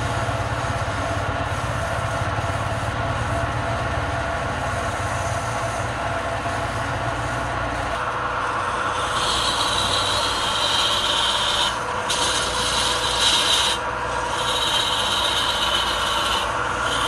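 Wood lathe running steadily while the spinning wooden piece is worked by hand. From about nine seconds in, a hand chisel cuts into the turning wood, adding a higher hiss in stretches with short breaks between passes.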